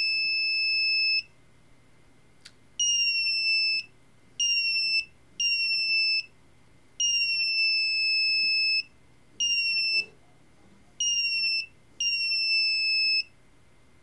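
Small electronic buzzer, driven by an Arduino through a reed-switch module, sounding one steady high tone in about eight on-off bursts of uneven length. It sounds each time a magnet brought near closes the reed switch and stops when the magnet moves away.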